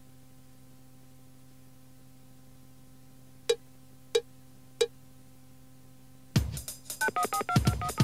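A faint steady tape hum, broken by three short cue beats about two-thirds of a second apart, the count-in after which the answering machine is set to record the next greeting. About six seconds in, the next greeting's backing music starts with drum hits and quick two-tone electronic beeps.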